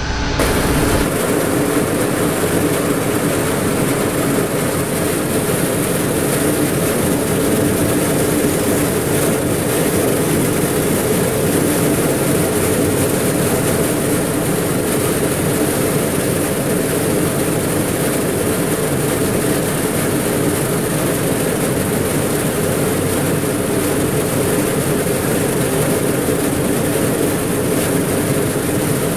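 A Virto C-Line VPM 900 round vibratory screener running steadily as it sieves zinc oxide powder, a loud, even machine hum with hiss that settles in about a second in.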